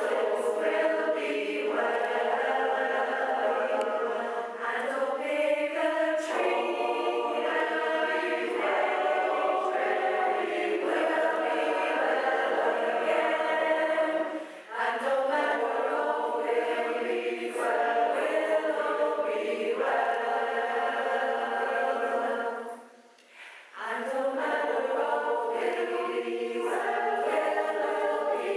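Large mixed choir of women's and men's voices singing in several parts, holding chords in long phrases, with two short breaks between phrases, the longer one about two-thirds of the way through.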